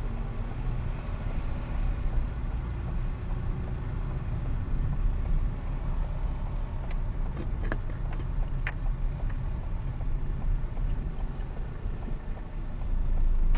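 Low, steady rumble of a car's engine and road noise heard from inside the cabin as it creeps through slow city traffic, with a few sharp clicks about halfway through.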